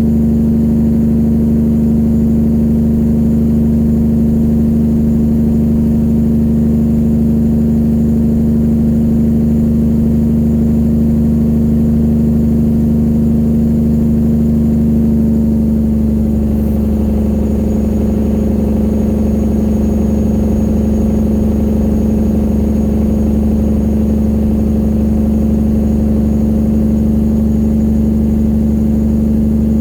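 A 1999 Peterbilt 379's straight-piped diesel engine running steadily under load, its note changing slightly about halfway through.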